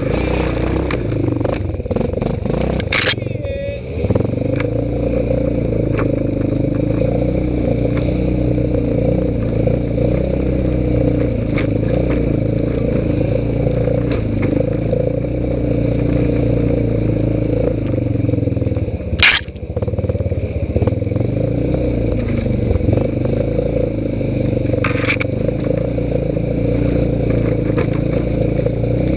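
ATV engine running at low speed on a trail, a steady rumble that shifts only a little in pitch. A few sharp knocks cut through it, one about three seconds in, a louder one near the middle, and a fainter one later on.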